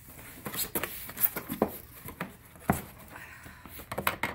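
Vinyl records and cardboard boxes being handled: scattered knocks, taps and rustles, with about three sharper knocks.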